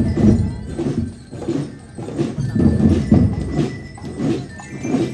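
Drum and lyre corps playing: drums beating a steady marching beat, with faint bell lyre notes above.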